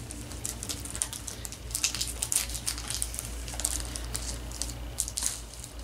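Plastic candy-bar wrapper crinkling in the hands as it is pulled open, a run of quick, sharp crackles that stops about five seconds in.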